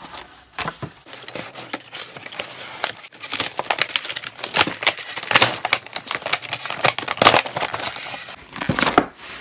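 Clear plastic blister packaging crinkling and crackling as it is slid out of a cardboard box, with the cardboard rustling. It is a dense run of sharp crackles, getting busier and louder from about three seconds in.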